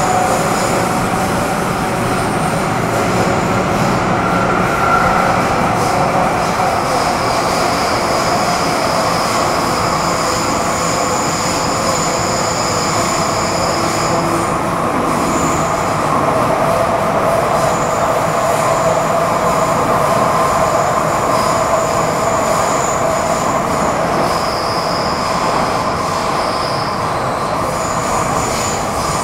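MTR Metro Cammell M-Train (CM-Stock) running at speed: a steady rumble of wheels and running gear with steady whining tones from its GEC GTO chopper traction equipment. Thin, high-pitched squealing tones come and go above it through most of the run, the abnormal noise noted for this section.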